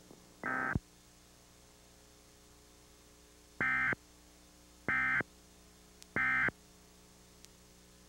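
Emergency Alert System end-of-message data signal: short bursts of raspy two-tone digital screech, sent just after the test's closing announcement to mark the end of the alert. One burst comes just under a second in, then three identical bursts about a second and a quarter apart.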